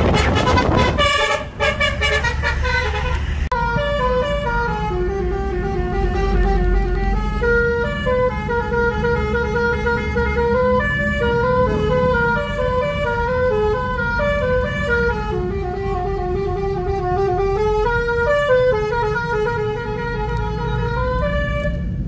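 Basuri 'telolet' multi-tone bus horn on a moving car, playing a melody of stepped rising and falling notes that repeats phrase after phrase, over the low rumble of the car on the road.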